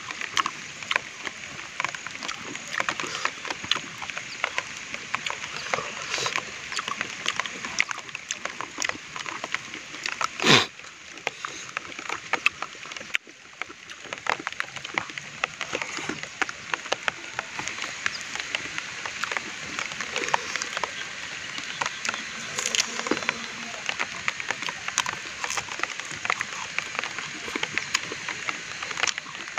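Close-up eating sounds: wet chewing and mouth-smacking over rice and pork eaten by hand, with crackling of the banana leaf it is served on. One louder knock stands out about ten seconds in.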